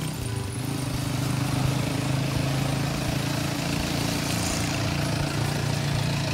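A motor vehicle's engine idling steadily, its pitch holding level.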